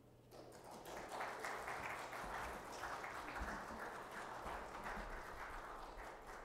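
A small congregation applauding, starting about half a second in and dying away near the end.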